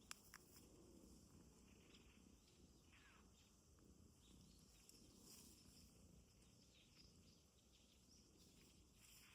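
Near silence: faint outdoor ambience with a couple of soft clicks at the very start.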